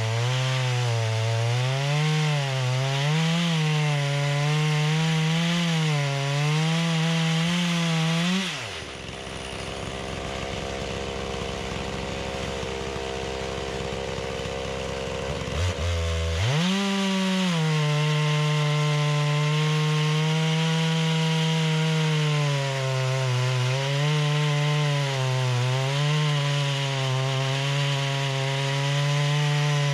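Holzfforma G660, a two-stroke clone of the Stihl 660, running at full throttle through a chainsaw mill cut in pine, its pitch wavering as it loads in the wood. About eight seconds in it drops to idle, and about eight seconds later it revs back up and resumes cutting.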